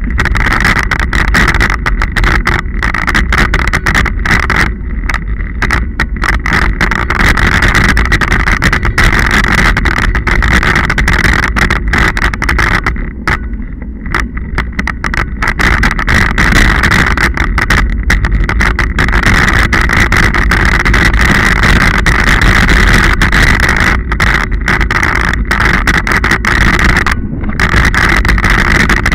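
Scott Genius mountain bike rolling over a muddy dirt-and-gravel track, picked up by a bike-mounted action camera: a loud, steady rush of wind on the microphone mixed with tyre and frame rattle, easing briefly about halfway through.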